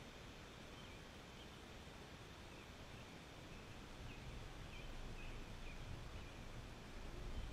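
Quiet outdoor ambience with birds chirping faintly and a low rumble that swells from about halfway through.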